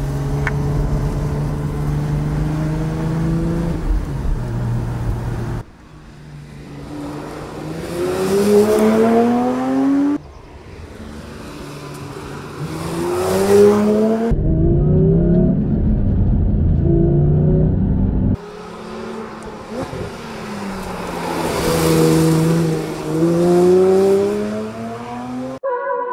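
Porsche 911 Speedster's naturally aspirated 4.0-litre flat-six engine in several short cut-together clips: running steadily, then revving up with its pitch climbing again and again through the gears, with a few fast drive-bys that swell and fade.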